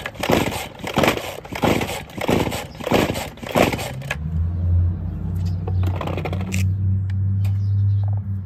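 Stihl two-stroke string trimmer being pull-started: a quick series of rasping recoil-cord pulls, then the engine catches about four seconds in and runs steadily.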